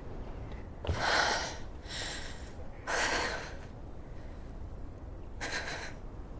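A woman takes slow, deep, audible breaths, four in all. The first and third are the loudest, and the last comes after a pause of about two seconds.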